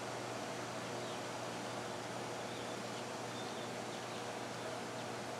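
Quiet outdoor background with a steady low hum, and a few faint, short, high peeps from young chickens scattered through it.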